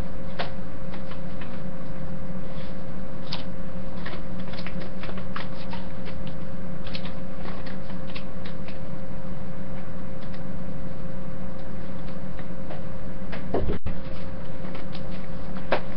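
Scattered rustles and light clicks of paper being handled, over a loud, steady hum.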